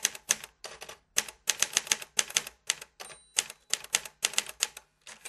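Typewriter sound effect: keys clacking in quick, irregular strokes, about four or five a second, as text is typed onto a title card. About three seconds in there is a short pause with a faint ring.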